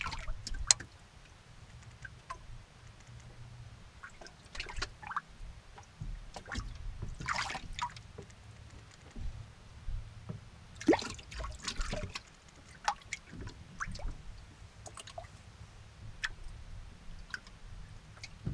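Small water sounds against a boat hull: light irregular lapping and drips, with scattered small ticks and a couple of brief splashy swishes, over a low steady rumble.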